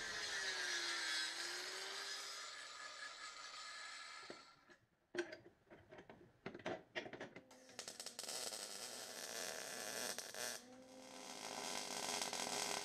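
Welder tack-welding a steel engine-mount bracket into the car's engine bay: a few short crackling bursts, then a longer run of welding crackle.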